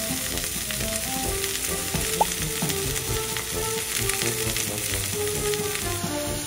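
Beef steaks sizzling and crackling in a hot nonstick frying pan, a steady fine crackle, with soft background music over it.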